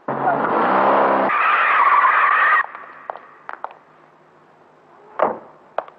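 Car skidding to a stop, tyres squealing for about two and a half seconds before cutting off sharply; a few faint clicks follow.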